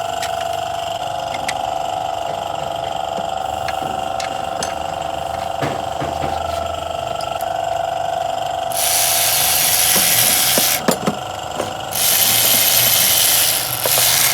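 Mechanic's tools at work on a car engine: scattered clicks and ratchet-like ticks over a steady hum, then two loud bursts of hissing noise from a power tool, each about two seconds long.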